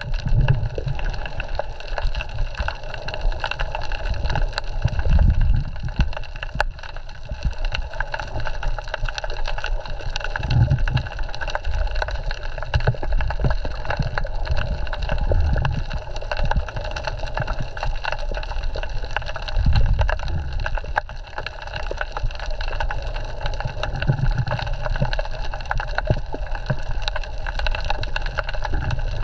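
Underwater sound picked up by a submerged camera on a coral reef: a dense crackle of tiny clicks over a steady hiss. Low whooshing surges of moving water come every four to five seconds.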